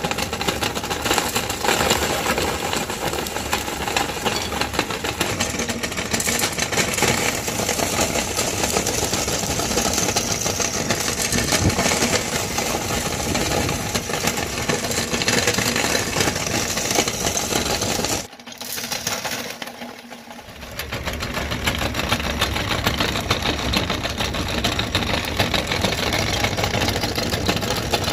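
Motor-driven meat grinder running with its pulley wheel spinning, a steady whirring rattle as it crushes small candy balls into powder. The sound drops away abruptly about two-thirds of the way through, then comes back up to full level.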